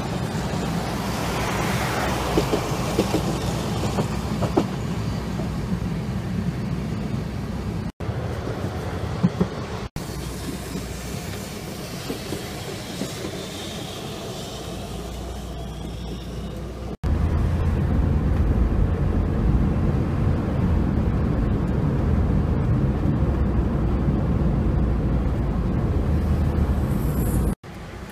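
Hankai Tramway streetcars running along street track, heard in several short clips joined with abrupt cuts: a steady rumble of wheels on rails and running gear. A high whine rises and falls about halfway through, and the rumble is louder and deeper in the last clip.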